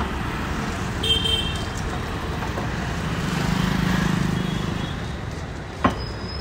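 Busy street traffic: a steady din of engines with a short car-horn toot about a second in. A vehicle passes closer and louder in the middle, and there is a sharp knock just before the end.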